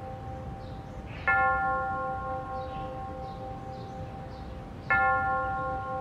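Church bell tolling, struck twice about three and a half seconds apart, each stroke ringing on and still sounding when the next one falls.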